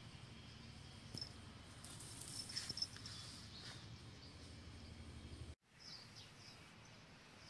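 Quiet garden ambience: a steady low background hum with a few short, high chirps and faint clicks. A little over halfway through the sound cuts off abruptly and comes back as a quieter background with more short high chirps.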